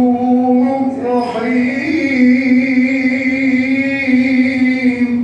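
Male voice chanting Quran recitation in melodic tajwid style, holding long drawn-out notes with a brief pitch rise about two seconds in, ending the phrase sharply near the end.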